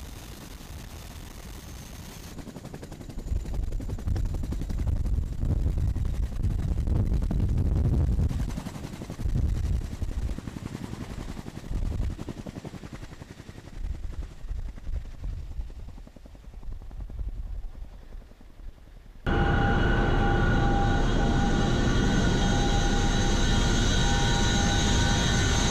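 CH-47 Chinook helicopters outside, with a faint high whine at first and then a heavy, uneven low rumble of rotors and rotor wash buffeting the microphone as they lift off and pass overhead. A little over three quarters in, the sound cuts suddenly to inside a Chinook's cabin in flight: a loud, steady drone with several high whining tones from the engines and transmissions.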